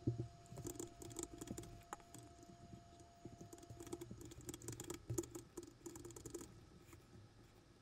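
Faint clicking of computer keyboard keys in quick irregular runs, stopping about six and a half seconds in.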